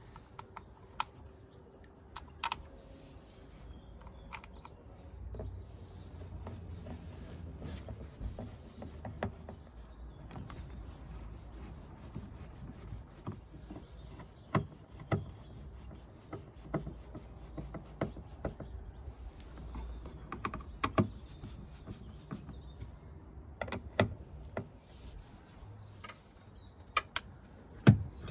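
Scattered sharp clicks and light knocks, irregular, from hands working on a car's rear door panel and its plastic parts, with a few louder knocks, the loudest near the end.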